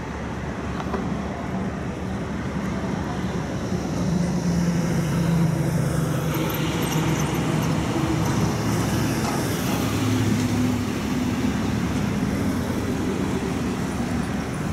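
City street traffic: car and truck engines running and passing, with steady road noise. It grows louder over the first few seconds, with a heavier engine drone near the middle.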